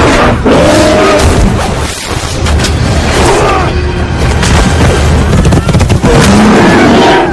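Action-film battle soundtrack: repeated deep booms and crashes over orchestral music, with curving cries rising through the mix several times.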